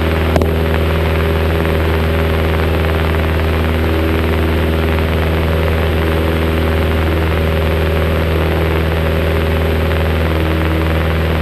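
Cessna 172's piston engine and propeller running steadily in flight, heard inside the cabin as an even, unchanging drone with a strong low hum.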